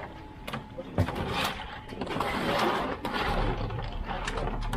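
Fishing-harbour bustle: scattered knocks and clatter over a general din, with a low steady hum coming in about three seconds in.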